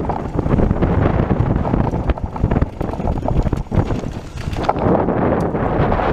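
Wind buffeting an action camera's microphone on a fast mountain-bike descent, with tyres rolling over dirt and loose rock and many sharp rattles and knocks as the bike goes over bumps.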